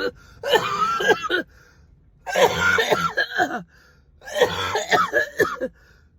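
A woman coughing and clearing her throat in a fit: three bouts, each about a second long, with short pauses between.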